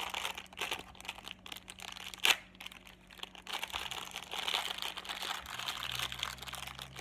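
Crinkly shiny plastic wrapper of a toy surprise packet being worked open by hand: irregular crinkling and crackling, with one sharp, louder crackle a little over two seconds in.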